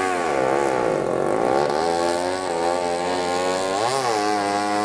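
Engine of a racing long-tail boat running hard, its note wavering in pitch. It sags about half a second in and climbs again around four seconds in.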